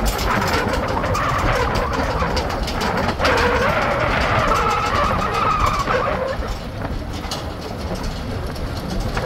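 Car driving on a paved road, heard from inside: steady engine and road rumble with wind noise, and a wavering tone over the middle few seconds.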